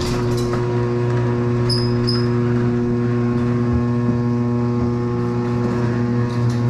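Electric garage door opener running with a steady motor hum as the sectional garage door rises.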